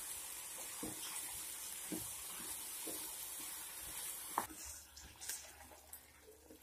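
Chopped ridge gourd frying in a pan, stirred with a wooden spatula: a steady sizzle with soft scrapes and knocks about once a second. About four seconds in, the sizzle drops away and only faint spatula taps remain.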